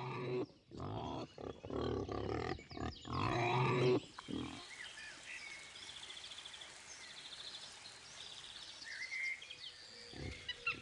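Wild boar grunting in a run of short, loud, rough calls over the first four seconds. After that it goes quieter, with faint high trills.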